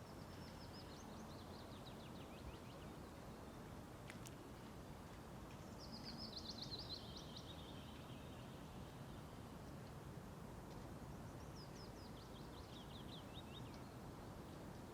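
A songbird singing three phrases about five seconds apart, each a quick run of high notes falling in pitch and lasting two to three seconds, over a steady low hiss of outdoor background noise. There is a brief click between the first and second phrases.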